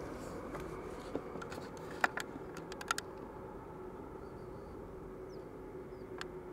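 Boeing 787 Dreamliner's jet engines running steadily on the ground, a steady hum under a noisy rush, with several sharp clicks about two to three seconds in.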